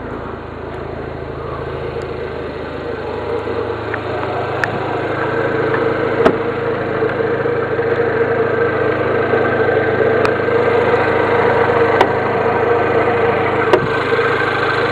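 Mini Cooper S's 1.6-litre turbocharged four-cylinder engine idling steadily, growing louder over the first half, with a few sharp clicks.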